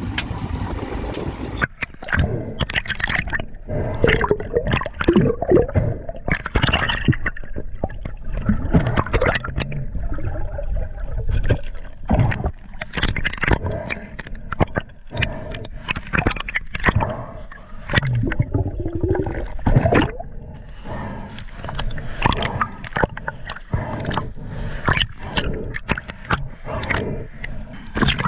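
Water gurgling and bubbling around a camera held underwater, with irregular sloshes and scrapes as a spearfisher swims and dives. A steady wind hiss cuts off about a second and a half in as the camera goes under.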